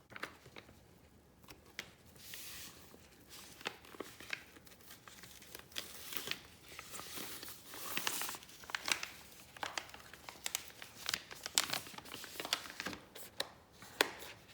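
Plastic packaging crinkling and tearing as a keyboard part is unwrapped, with scattered sharp rustles and clicks that grow busier after the first couple of seconds.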